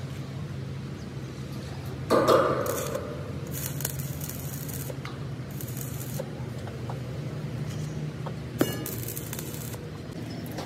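Workshop machine noise: a steady low hum, a loud knock about two seconds in, and several short bursts of high hiss, with a sharp click near the end.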